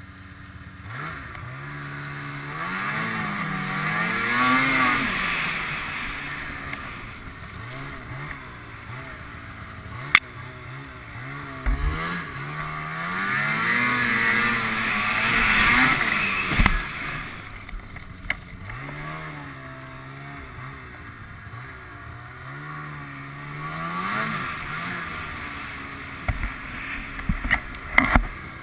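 Snowmobile engine revving up and easing off three times, settling back to a lower running note in between. A few sharp knocks cut in, one about ten seconds in and a quick cluster near the end.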